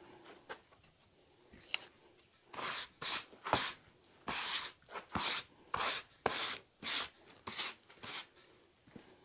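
A series of about ten short rubbing or scraping strokes, roughly two a second, starting a couple of seconds in and stopping near the end.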